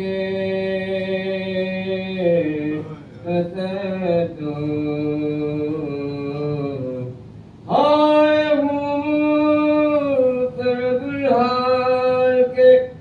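An elderly man's solo voice chanting soz, an unaccompanied Muharram lament, in long held, wavering notes. After a short breath about seven seconds in, he comes back louder and higher.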